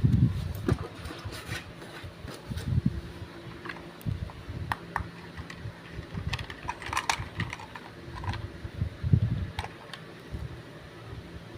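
Hands handling packaging and an item during an unboxing: scattered clicks and taps, with low thuds at the start and again about nine seconds in, over a steady hum.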